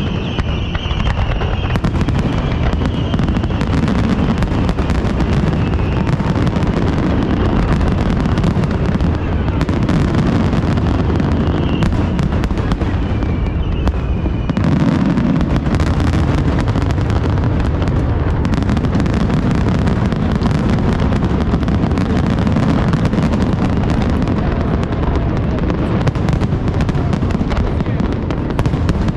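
Aerial fireworks display in a dense, continuous barrage: overlapping bangs and crackles over a steady low rumble, with a few brief whistling tones in the first few seconds and again near the middle.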